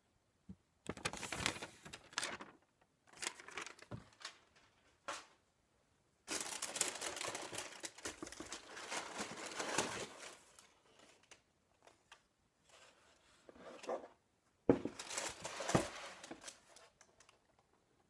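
Shoe packaging handled during an unboxing, crinkling and rustling in irregular bursts, the longest lasting about four seconds in the middle.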